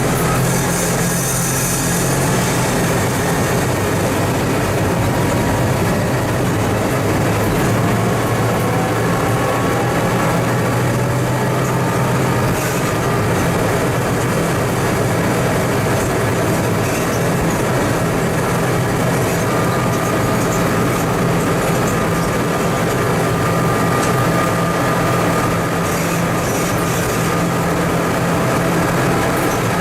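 Diesel engine of a TMC200 snow-removal rail motor car running steadily, with faint whining tones that slowly glide in pitch.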